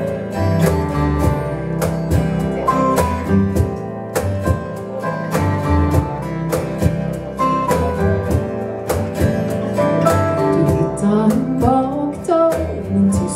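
Live acoustic band playing an instrumental passage: strummed acoustic guitars over plucked upright double bass, in a steady rhythm.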